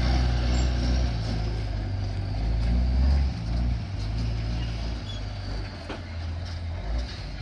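Heavy truck engine rumbling low as the truck drives past towing a flatbed trailer. It is loudest about three seconds in, then fades as the truck moves away.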